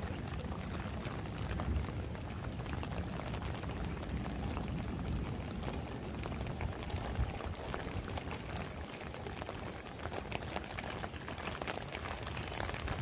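Heavy rain falling steadily, a dense even patter of many drops.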